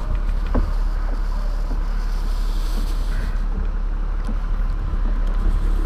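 Wind buffeting the microphone: a steady low rumble, with one small knock about half a second in.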